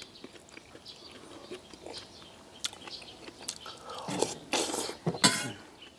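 Eating sounds: mouths chewing rice and spoons clicking lightly against stainless steel bowls, with a louder stretch of noisy eating sounds about four seconds in.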